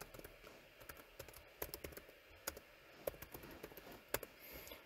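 Computer keyboard typing: faint, irregular keystrokes.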